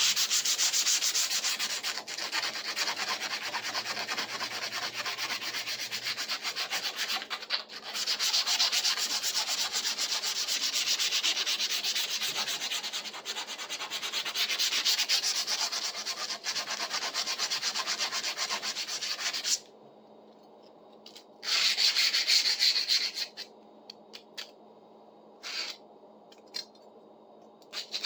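Sanding rust off the steel blade of a pruning saw: a long run of continuous rasping that stops, then one shorter burst, then a few brief scrapes.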